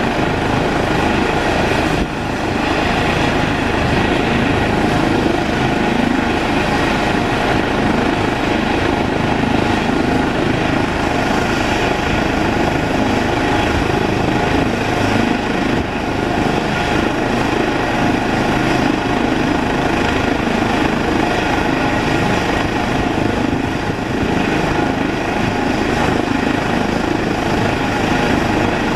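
Eurocopter EC135 air-ambulance helicopter running on the ground with its rotor turning: a steady turbine whine over the rush of the main rotor, unchanging throughout.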